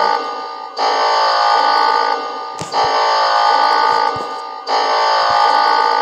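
Alarm tone from a fan-made Emergency Alert System (EAS) alert: a loud blast made of many stacked tones, held for about a second and a half, fading, then repeating about every two seconds.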